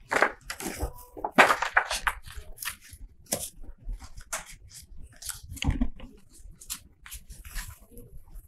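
Sheets of paper and cardboard rustling and crinkling as they are handled and bent, mixed with scratchy pencil strokes, in irregular short sounds with no steady rhythm.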